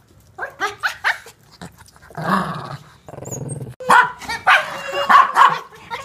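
Small dogs, a toy poodle and a shih tzu, play-fighting: a quick run of high yapping barks, a rough growl about two seconds in, then more barks and yips near the end.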